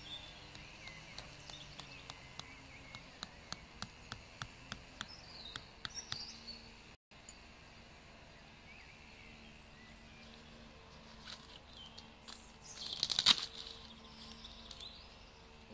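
Rubber mallet knocking a metal tent peg into turf, in even blows about three a second for roughly six seconds. Near the end comes a brief, louder rustle, with birds chirping faintly throughout.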